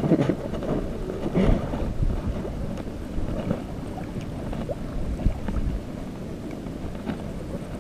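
Wind buffeting the action camera's microphone as a low, steady rumble, with water sloshing around the wader's legs; a short louder knock about a second and a half in.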